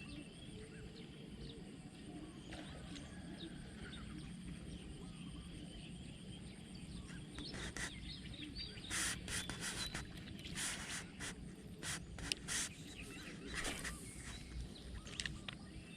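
Outdoor ambience: a steady low rumble with faint bird chirps. In the second half, a run of short, irregular rustling noises.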